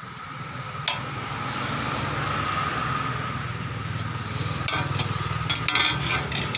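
Sharp metallic clicks of a 10 mm wrench working the horn's mounting bolt on a motorcycle: one about a second in, then a cluster near the end. They sit over a steady background rumble and hiss.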